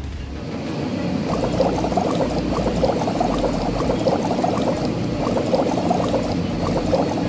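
Cartoon bubbling sound effect of foam being scrubbed onto a vehicle: a dense run of quick, gurgling bubble pops that builds up about a second in and stops abruptly at the end.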